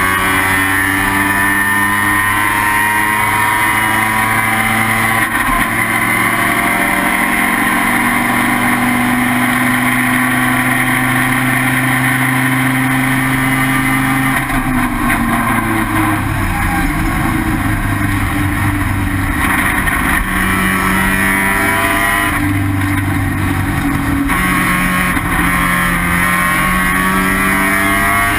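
Race car's rotary engine (an IT7-class Mazda RX-7) running hard at high revs. The pitch climbs slowly, holds steady, drops about halfway through as the driver lifts and changes down, then builds again near the end.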